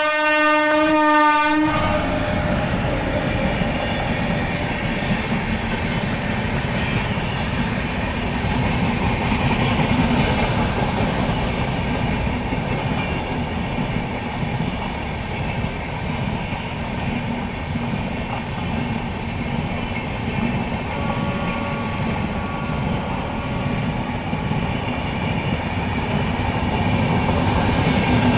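WAP-7 electric locomotive's horn sounding in one held blast that cuts off about two seconds in. The passenger express's coaches then rumble past, their wheels clacking over the track.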